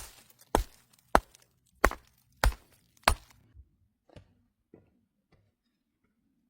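A run of sharp, regular knocks, about one every 0.6 seconds, that fade to a few faint ticks and stop about halfway through.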